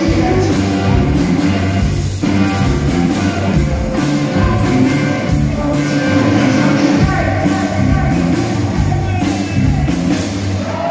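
Live rock band playing loudly through amplifiers: electric guitars, bass and drums, with a man singing lead vocals.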